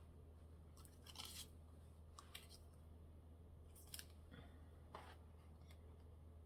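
Scissors snipping paper, a few faint separate cuts, over a low steady hum.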